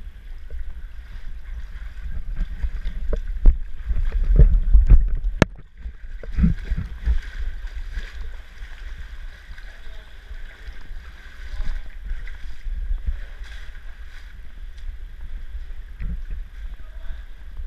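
Water sloshing and splashing as someone wades through shallow pools between boulders, over a steady muffled rumble and knocks from the camera being handled. A cluster of loud knocks comes about four to five seconds in, ending in a sharp click.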